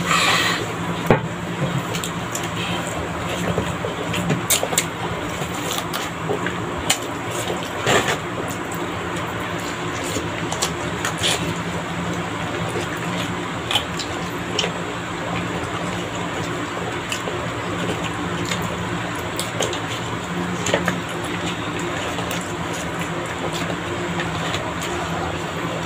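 Eating at a meal: scattered clicks and knocks of utensils against a plate, with chewing, over a steady background hum.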